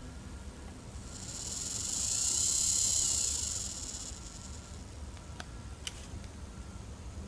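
A hissing sound effect from a small MP3 sound module: a high hiss that swells up and fades away over about three seconds. Two sharp clicks follow about half a second apart.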